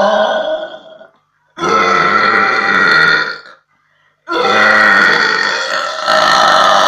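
A woman burping: one long burp tails off about a second in, a second burp lasts about two seconds, and a third long burp starts a little past four seconds in and carries on. The burps are loud and drawn out.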